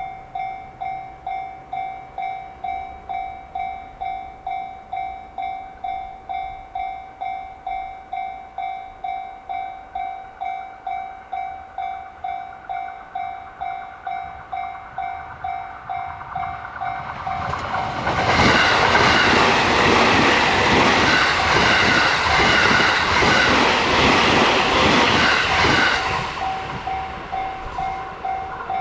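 Japanese level-crossing warning bell dinging steadily, about one and a half strikes a second. From about 17 seconds in, an electric train passes over the crossing for about eight seconds, its wheels clattering over the rail joints and drowning out the bell. The bell is heard again near the end.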